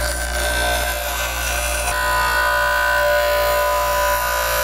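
JET bench grinder running with a steady hum and whine while the lower lip of a PTC unit is ground down against its wheel.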